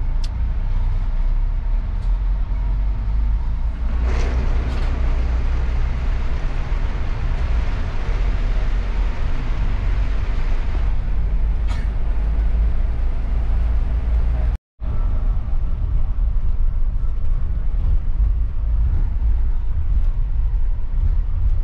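Mercedes-Benz OC500RF bus on the move: a steady low engine and road rumble with tyre hiss, a few light clicks, and a brief cut to silence about two-thirds of the way through.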